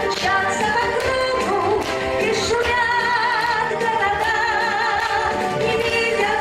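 Upbeat pop song with a full accompaniment and a wavering, vibrato melody line on top, typical of a woman singing.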